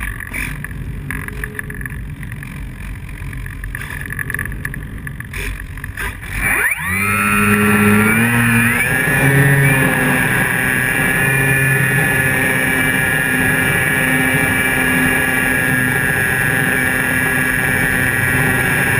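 Electric motor and propeller of a Flyzone Calypso RC plane, heard from a camera under the wing: first air rushing past with the motor off or low, then about a third of the way in the motor spools up in a quick rising whine and runs on at a steady high-pitched drone.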